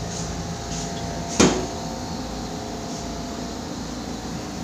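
Steady hum of running lab equipment, with one sharp click or knock about a second and a half in.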